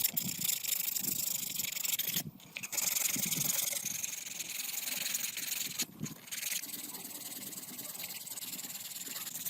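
Steady hissing scrape of something being rubbed against a surface, broken by short pauses about two and six seconds in.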